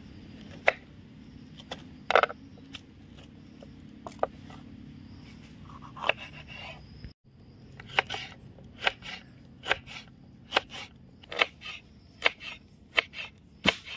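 Short sharp scrapes and clicks. They come irregularly at first, then about once a second after a brief break near the middle.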